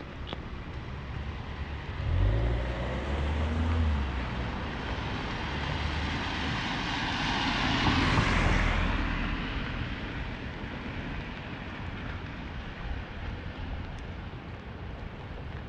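A vehicle passing on a wet street: a low engine rumble starts about two seconds in, then tyre hiss swells to its loudest about eight seconds in and fades away, over a steady hiss of rain.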